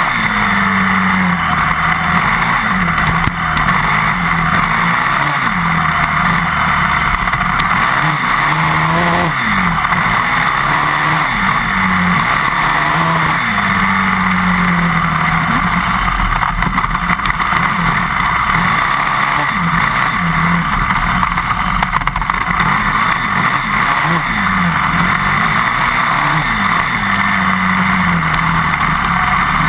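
Yamaha WR 400 dirt bike's single-cylinder engine running hard, its pitch climbing and falling back again and again as it accelerates and eases off, heard close to the rear wheel over a steady rush of wind and tyre noise.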